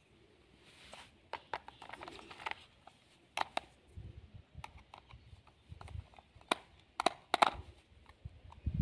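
Sharp clicks and small scrapes of hard plastic being handled and a screwdriver tip working the battery-cover screw on the underside of a plastic toy RC stunt car, with a few louder clicks in the second half.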